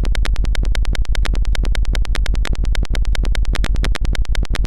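Tinkercad's simulated piezo buzzer sounding as a door alarm: a loud, harsh, steady buzz made of rapid, evenly spaced clicks, with the piezo running only on a capacitor's charge.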